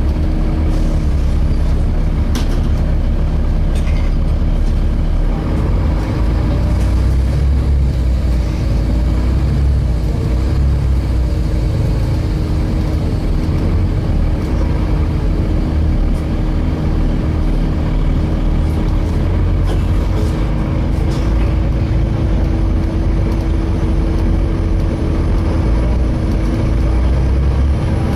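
Volvo B7TL double-decker bus under way, heard from inside: a steady engine and road drone with a constant hum, and a few faint rattles.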